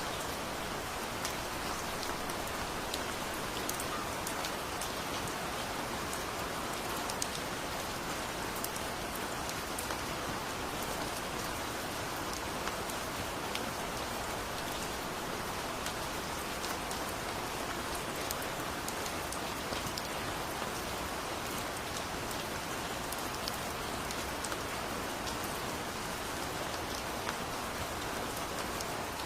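Heavy rain falling steadily, with a dense patter of individual drops heard as small sharp ticks.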